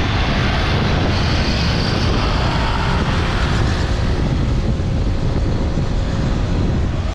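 Steady wind rush on the microphone of a camera riding along with a group of road cyclists at speed, mixed with road noise and motorbike traffic passing alongside.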